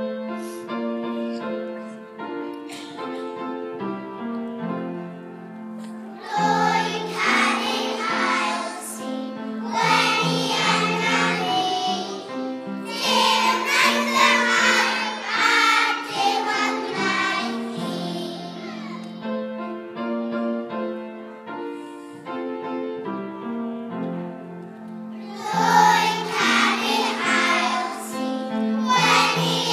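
A children's choir singing a song over an instrumental accompaniment; the accompaniment plays alone for the first few seconds before the voices come in, and the singing swells loudest in several phrases.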